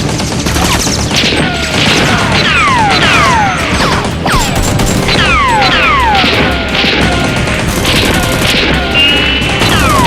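Edited action-film soundtrack: music with crashing impact effects and repeated whistling sound effects that fall steeply in pitch, several every couple of seconds.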